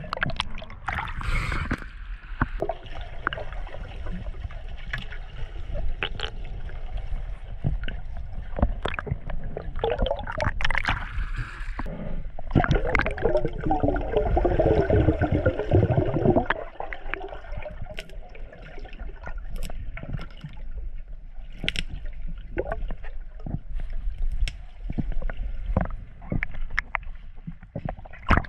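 Underwater sound heard through a diving camera's housing: water gurgling and bubbling, with scattered short clicks and a louder stretch of bubbling about halfway through.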